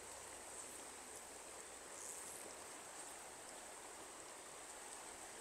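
Faint, steady rush of stream water.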